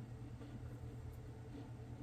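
Quiet room tone: a low steady hum with a few faint ticks.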